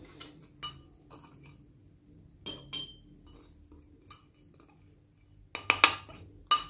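Metal spoon clinking and scraping against a ceramic bowl and the rim of a small glass jar as powder is scraped into the jar: scattered light clinks with a brief ring, then a quick run of louder knocks near the end.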